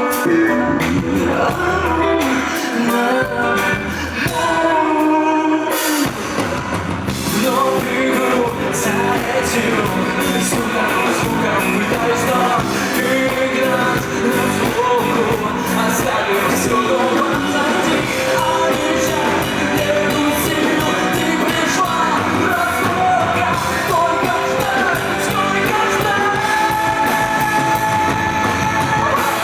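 A rock band playing live with a singer. The bass and drums drop back briefly and come back in full about six seconds in.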